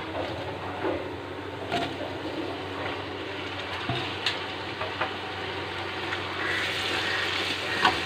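Onions and ground masala frying in oil in a deep pot with a steady sizzle, as tomatoes are added and stirred in, with a few light knocks of a spoon on the pot. The sizzle grows louder near the end.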